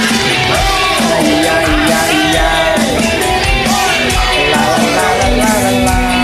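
A man singing a karaoke duet part over a recorded backing track with a steady beat.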